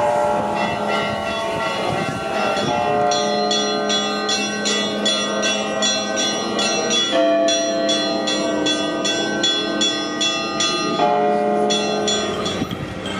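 Orthodox church bells ringing a festive peal: small bells struck rapidly, about three strikes a second, over the lingering ring of several held tones.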